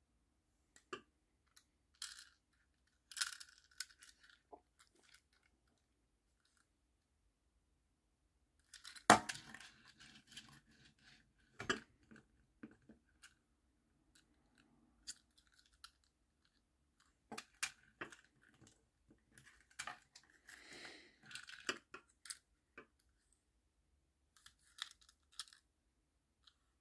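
Handling noise from a small die-cast toy minibus being turned over in the fingers: scattered light clicks, taps and rubbing. Two sharper knocks stand out, the louder about nine seconds in and another near twelve seconds.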